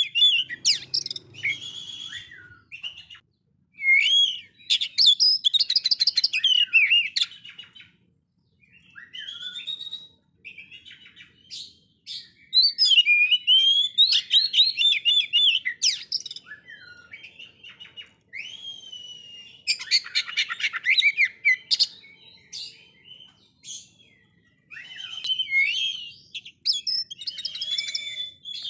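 Oriental magpie-robin singing in phrases of varied whistles, rapid trills and rising and falling sweeps, broken by short pauses.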